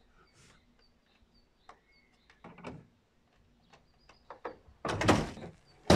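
Metal clicks and knocks from a hand wrench and door hardware as a Volkswagen Passat B3's front door is unbolted from its hinges, growing into louder clattering in the last second. A small bird chirps faintly and repeatedly in the background.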